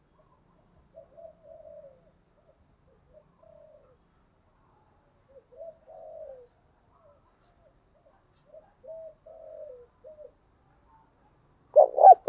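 Spotted dove cooing: a series of soft, low coo phrases, then a much louder coo near the end. A recorded lure call of the kind played to draw wild spotted doves in.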